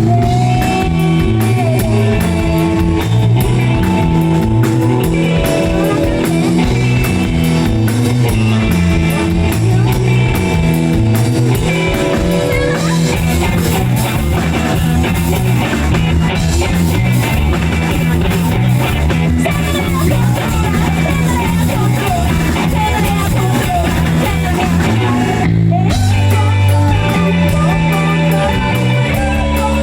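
Rock band playing with drum kit, electric guitar and bass. There is a brief stop a few seconds before the end, then the band comes back in.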